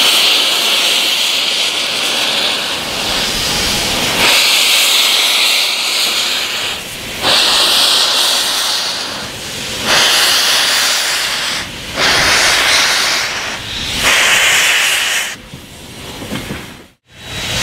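The open cylinder drain cocks on Pere Marquette 1225, a 2-8-4 steam locomotive, blowing steam as it moves off slowly. About six loud hissing blasts come roughly every two seconds, one with each piston stroke, and they fade near the end.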